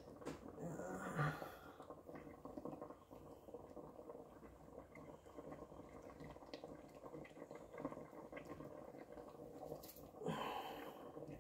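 Faint bubbling and crackle of mackerel simmering in a creamy sauce in a stainless steel pot, with a short rustle of handling about ten seconds in.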